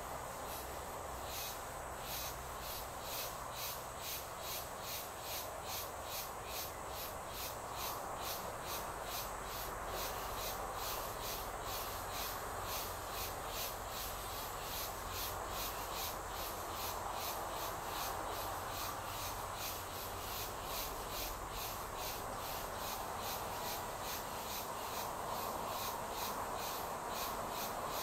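Insects chirping in an even, steady pulse of about three chirps a second, over a constant background hiss.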